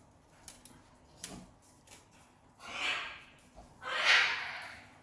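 Sulphur-crested cockatoo giving two harsh, hissing screeches, about a second apart, past halfway through; the second is louder. A few faint taps come before them.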